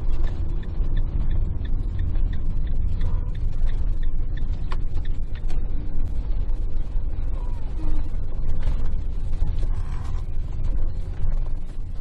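Campervan heard from inside the cab while driving slowly: a steady low engine and road rumble, with many small irregular clicks and creaks from the van's interior rattling.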